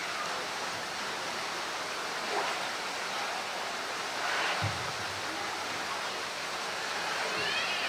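Steady rush of pool water, with a brief low thump about four and a half seconds in as a polar bear moves a floating plastic barrel in the water.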